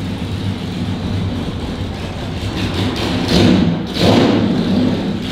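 A car engine running low and steady, with louder rushing swells of noise over the last two seconds.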